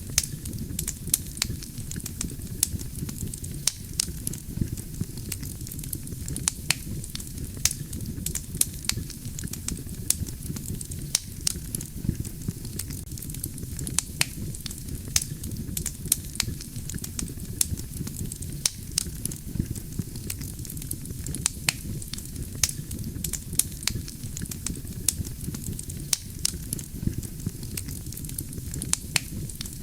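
Wood campfire burning: a steady low rumble of the flames with frequent sharp, irregular crackles and pops from the burning logs.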